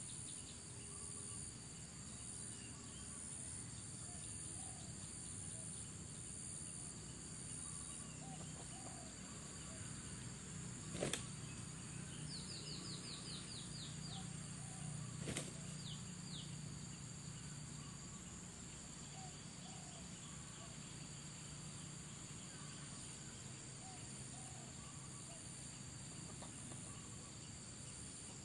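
Steady high insect drone. Near the middle there are two sharp snaps about four seconds apart, with a quick run of high descending chirps between them.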